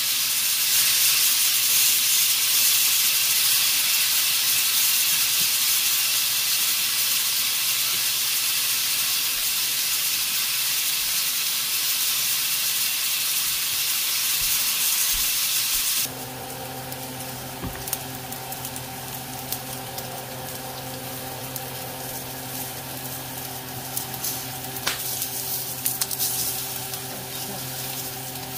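New York strip steaks sizzling in a hot grill pan: a loud, steady hiss that drops abruptly to a quieter sizzle a little past the middle, with a steady low hum underneath from then on and a few faint clicks near the end.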